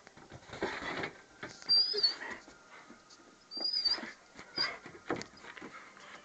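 A dog gives short, high-pitched whimpers twice, about two and four seconds in, between short noisy huffs as it bounds in the snow.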